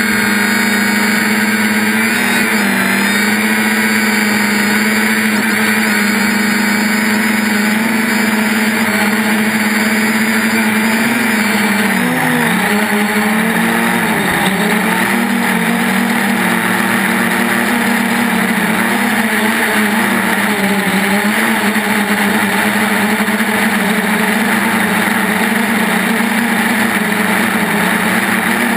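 3DR Iris+ quadcopter's motors and propellers running in flight, a loud steady buzzing hum whose pitch wavers briefly now and then as the throttle changes.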